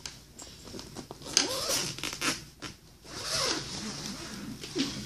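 Socks or shoes being pulled on: several short scraping strokes of fabric rubbing, the longest about a second and a half in and again past the middle.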